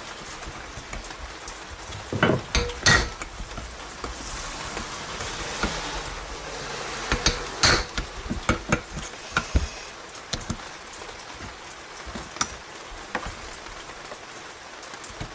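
Hammer blows on a hand impact driver set on the tight screws of a motorcycle generator stator coil: sharp metallic strikes, three about two seconds in, a quicker run of knocks from about seven to ten seconds in, and one more later.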